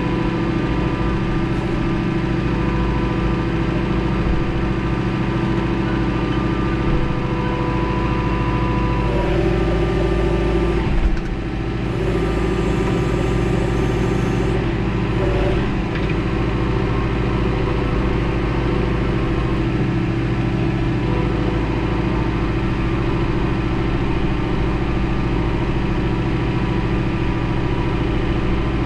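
Diesel engine of a John Deere 4066R compact tractor running steadily as it drives with a propane tank on its front loader. The engine note shifts between about nine and fifteen seconds in, with a single clunk about eleven seconds in.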